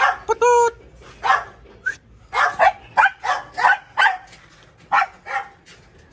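A dog barking in a quick series of short, high-pitched yaps, with one longer held yelp about half a second in and the barks coming thickest between about two and four seconds.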